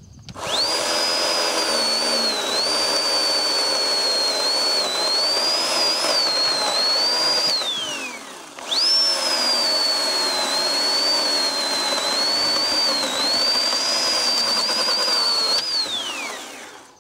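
Oregon 40V cordless electric chainsaw cutting into a log in two runs with a short break near the middle. Each run is a high motor and chain whine that starts quickly, wavers in pitch while cutting, and winds down with a falling pitch as the trigger is released.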